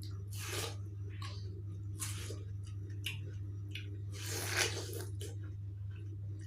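A person biting and chewing juicy fresh watermelon: three main wet, squishy bites, the last one the loudest, with smaller mouth clicks between them.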